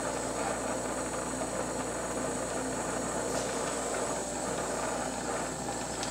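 Glassworking bench torch burning with a steady hiss as glass is turned in its flame, with a faint low hum underneath.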